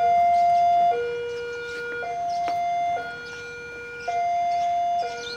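Railway level crossing warning bell sounding its electronic two-tone alarm, a higher and a lower tone alternating about once a second, warning that a train is approaching.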